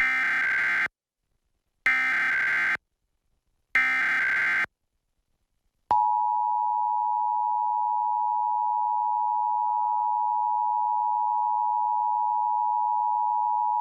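Emergency Alert System required monthly test as broadcast: three short bursts of the SAME digital header data, each just under a second long and about a second apart, then the EAS two-tone attention signal (853 and 960 Hz sounding together), a steady tone lasting about eight seconds.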